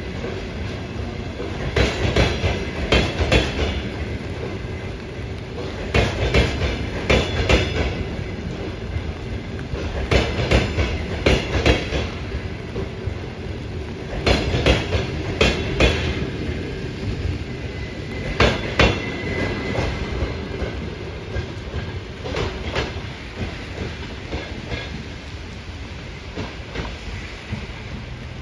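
Double-deck passenger coaches rolling slowly past, their wheels clattering over rail joints in clusters of knocks about every four seconds as each coach's bogies cross, over a steady rumble. The sound fades near the end as the train pulls away.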